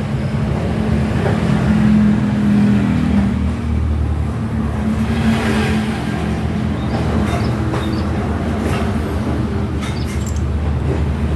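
A machine running steadily with a strong low hum, with a few sharp clicks in the later part.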